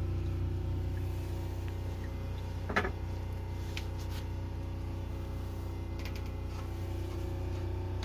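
A steady low machine hum with several fixed tones, and one short knock about three seconds in.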